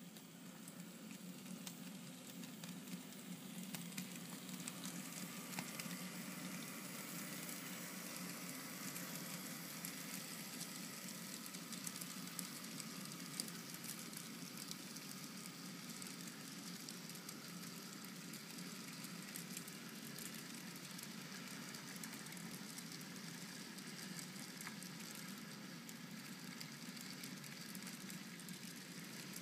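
Model train of covered hopper cars rolling along the track: a steady low rumble with a fine crackle of wheel clicks, building up over the first few seconds as the train comes by.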